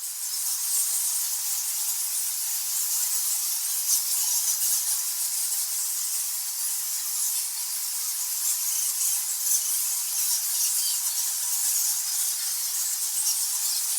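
Thousands of nectar bats squeaking and screaming in a cave: a dense, steady mass of high-pitched squeaks that never lets up.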